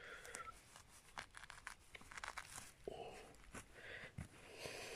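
Fingers prying apart a slit in lawn turf: faint tearing and crackling of grass roots and soil, with scattered small clicks.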